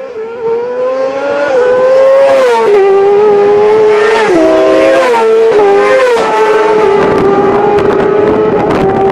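Road-racing motorcycle engine running hard at high revs, loud. Its pitch climbs, then drops in several quick steps, and holds steady from about seven seconds in.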